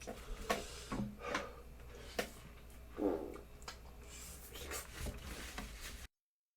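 Scattered light clicks, knocks and rustling of things being handled at close range, with a brief low muffled sound about three seconds in; the sound cuts off abruptly near the end as the recording stops.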